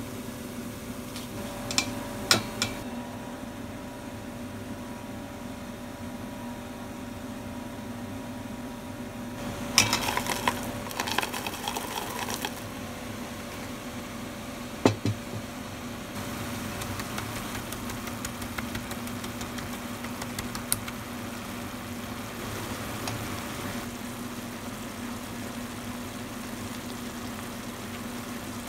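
Steady machine hum in a kitchen, with utensils clicking and clattering against a cooking pan: a few sharp clicks about two seconds in, a burst of clatter from about ten to twelve seconds, and a single knock about fifteen seconds in.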